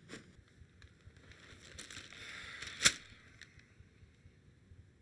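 Newspaper pages rustling as they are handled, ending in one sharp snap of the paper a little past the middle; otherwise quiet room tone.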